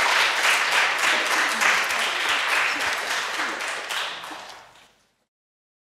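Audience applauding in a lecture hall, the dense clapping dying away about five seconds in.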